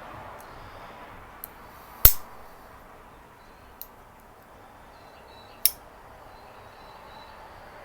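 Kobalt 15-in-1 all-metal multi-tool being handled, its metal blades and implements snapping into place with sharp clicks. There are four clicks, two of them loud: one about two seconds in and one more than five seconds in.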